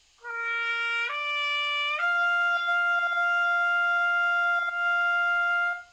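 Trumpet playing a slow lip slur up three partials: two short notes step upward about a second apart, then the top note is held as a long tone for nearly four seconds before stopping. This is a brass warm-up exercise of slurred partials ending on a long tone.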